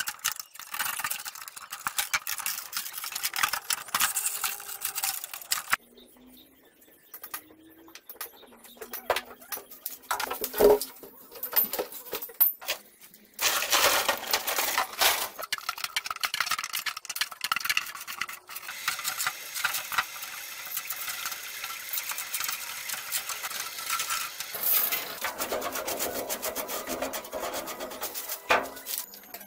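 Workshop handling noises: irregular clinks and knocks with stretches of scraping and rubbing, as of metal parts being worked on.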